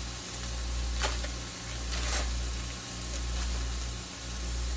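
A steady low hum that swells and dips about every second and a quarter, with two faint clicks about one and two seconds in as cheese slices are laid onto the meat in the pan.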